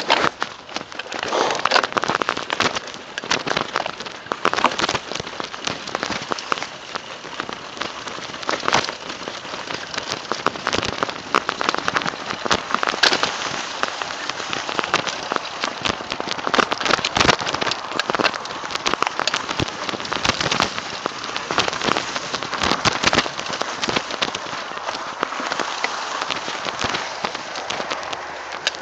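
Mountain bike descending through long, dry grass: a dense, continuous crackle of grass swishing against the tyres and frame, with many sharp rattles and knocks from the bike over rough ground.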